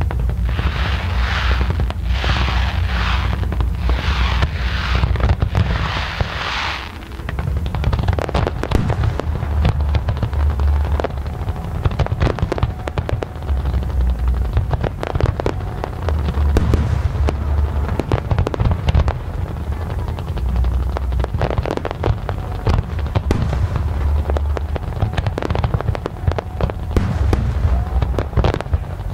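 Aerial fireworks display: a run of about eight hissing bursts over the first seven seconds, then rapid crackling and popping bangs over a deep booming rumble for the rest.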